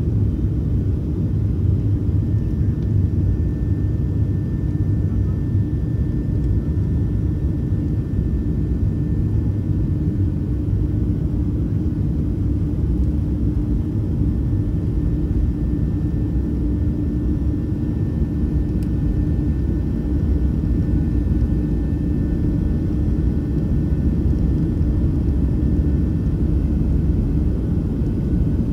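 Boeing 737-700's CFM56-7B engines heard from inside the cabin as the jet rolls along the ground: a steady low rumble with a faint steady whine over it.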